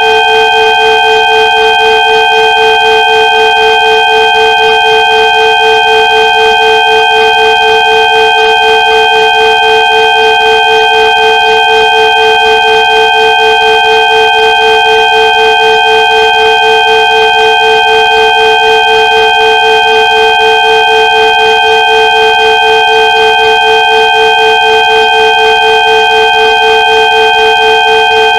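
Several steady electronic tones sounding together at fixed pitches, a synthesized 'healing frequency' drone, with a slight even pulsing in loudness.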